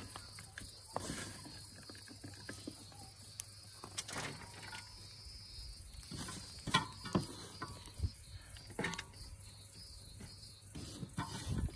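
Sliced onion, herbs and vegetables handled and set down on a large metal tray, giving soft rustles and several light knocks, a few of them bunched together past the middle. An insect-like high buzz runs under it through the first half.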